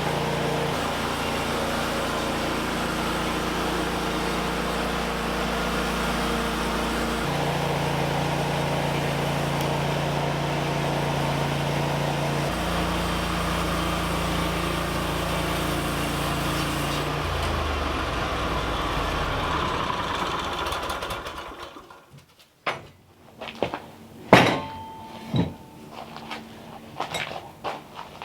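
A small engine runs at a steady speed, changing speed a couple of times, then winds down and stops about two-thirds of the way through, followed by a few sharp knocks.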